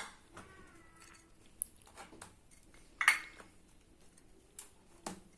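A few light clicks and knocks of small soaked semolina cakes and a tray being handled, the loudest about three seconds in.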